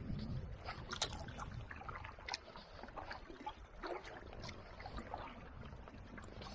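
Canoe being paddled: faint, irregular splashes and drips of the paddle in the water with scattered light clicks, over a low steady rumble.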